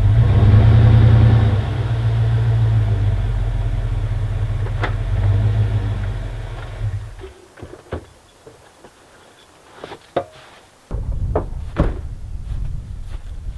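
Car engine running steadily, then cutting off about seven seconds in, followed by a few scattered knocks and clicks. A low rumbling noise starts again suddenly near the end.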